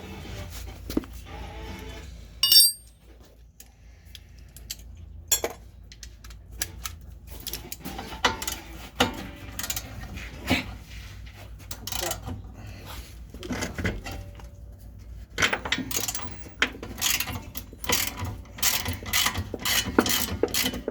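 Metal hand tools clinking and knocking against car brake parts, with one loud ringing metallic clang about two and a half seconds in and quicker knocks near the end. Music plays faintly underneath.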